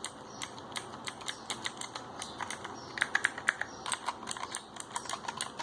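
Typing on a T-Dagger Bora RGB mechanical keyboard with Outemu Blue clicky switches: a quick, irregular run of sharp key clicks, with a denser flurry about three seconds in.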